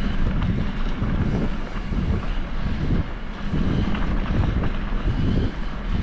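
Wind buffeting the microphone: a loud, uneven low rumble with a rushing hiss above it.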